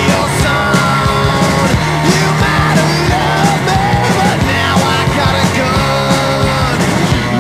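Rock music soundtrack with a steady drum beat and a gliding melody line over it.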